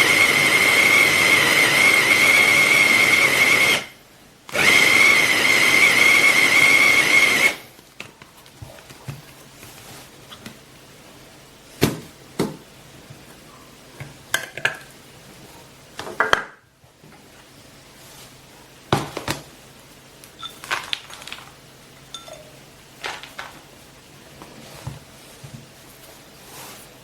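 Wancle 350 W electric food chopper's motor running in two bursts with a steady high whine: the first cuts off about four seconds in, the second runs about three seconds, pulsed operation for an even chop. After that come scattered knocks and clinks as the glass bowl and its parts are handled.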